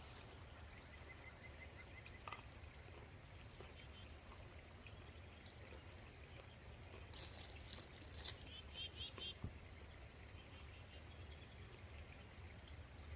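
Faint outdoor ambience: a steady low rumble with scattered short bird chirps and calls, most of them in the second half.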